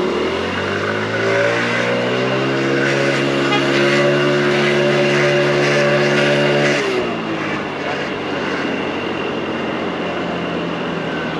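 Mondial Turismo scooter's 80cc engine pulling away, rising in pitch over the first couple of seconds and then holding steady under throttle. About seven seconds in it drops in pitch and fades as the throttle is eased, leaving mostly wind and road noise.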